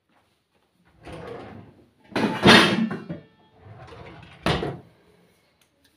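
A kitchen drawer being pulled open and pushed shut, with rattling and handling in between and a sharp knock near the end.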